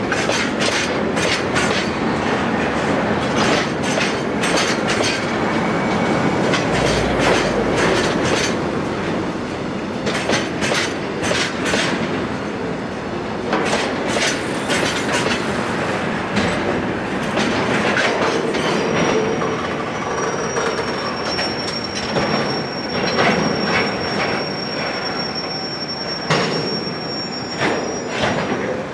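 Loaded Taki 1000 and Taki 43000 tank wagons of a freight train roll slowly past, their wheels clacking and knocking over the rail joints. About two-thirds of the way through, a high, steady squeal from the wheels sets in as the train slows.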